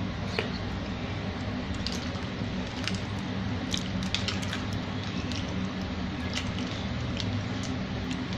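Someone eating es bubur sumsum (rice-flour porridge in palm-sugar syrup) from a cup with a spoon: scattered light spoon clicks and soft wet eating sounds, over a steady low hum.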